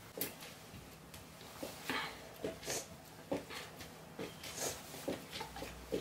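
Faint, scattered short sounds in a quiet small room: a man's brief nasal intakes of breath as he holds his breath against the burn of a very hot chili sauce, with small clicks and rustles from handling a plastic drink bottle and his jacket.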